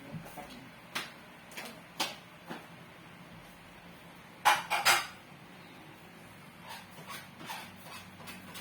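Dishes and tableware clinking and knocking during a meal: a few separate light clicks, then a louder double clatter about halfway through, then a few faint ticks.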